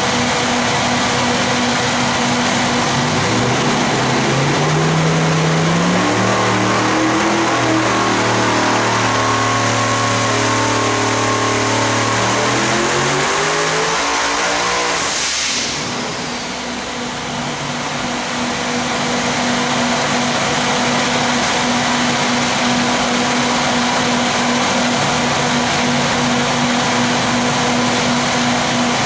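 Twin-turbo 615-cubic-inch methanol big-block V8 making a full-throttle dyno pull at 20 psi boost. Its pitch climbs steadily for about ten seconds toward roughly 8,000 rpm, then it cuts off suddenly with a brief high whistle. It then settles to a steady running note.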